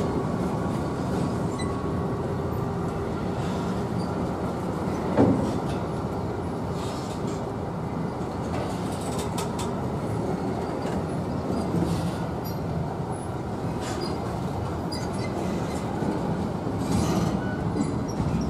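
DE6400 diesel-electric shunting locomotive running steadily as it moves a rake of covered goods wagons, with a few sharp knocks from the wagons. The loudest knock comes about five seconds in.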